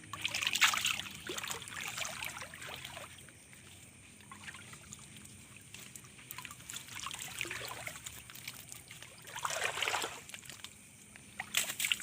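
Shallow ditch water splashing and trickling as a fish trap and its catch are handled, in uneven bursts: about a second in, again around seven to eight seconds, and near ten seconds. A short sharp knock near the end.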